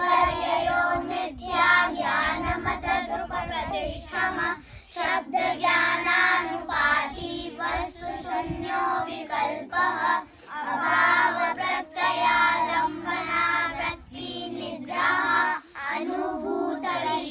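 A group of children singing a prayer together in unison, in sung phrases separated by short breaths.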